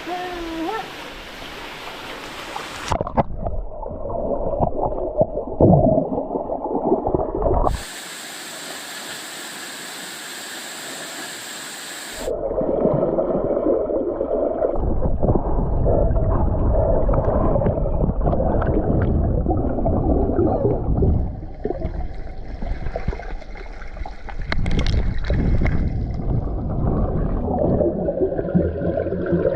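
Muffled rushing and bubbling of water heard with the microphone under the surface of a deep stream pool. It is broken for a few seconds near the middle by the open-air hiss of the flowing stream.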